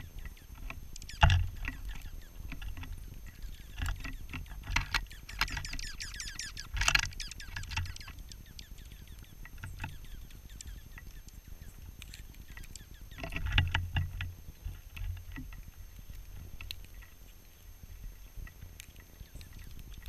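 Dark-eyed junco at a hopper feeder close to the microphone, pecking at seed and shuffling on the metal tray: irregular clicks and knocks, loudest about a second in and again about two-thirds of the way through, over a low rumble.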